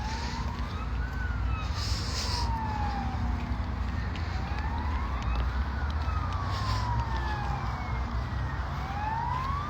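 A siren wailing: its pitch rises for about a second, then falls slowly over about three seconds, and the cycle repeats about every four and a half seconds, over a steady low rumble.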